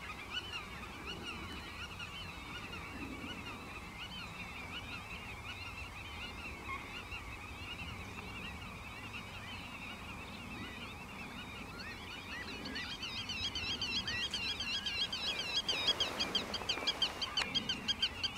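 Birds calling continuously in a dense chatter of short, repeated high notes. The calling grows louder and faster about two-thirds of the way through.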